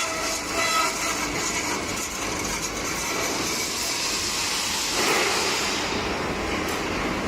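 Automatic burr-free metal cutting machine running, a steady mechanical hiss with faint whining tones; about five seconds in the noise grows fuller and brighter.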